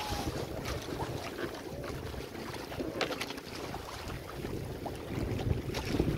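Wind buffeting the microphone over water rushing and splashing along the hulls and outrigger floats of an outrigger sailboat under sail, with scattered small splashes and knocks.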